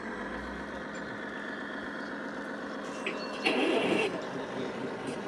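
Radio-controlled scale model trucks running, their engine-sound modules giving a steady truck-engine sound, with a brief louder burst about three and a half seconds in.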